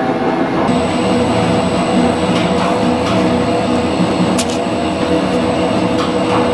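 Electric noodle-making machine running steadily with a motor hum and whine as a sheet of dough is fed through its rollers and cut into noodles, with a sharp tick about four seconds in.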